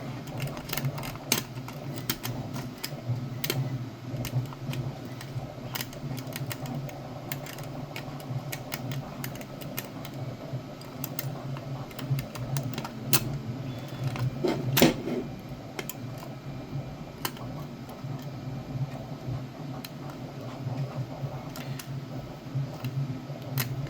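Lock pick and tension wrench working the pin tumblers of a Brinks deadbolt cylinder, which holds spool pins: small irregular metallic clicks and scrapes, a little stronger about fifteen seconds in.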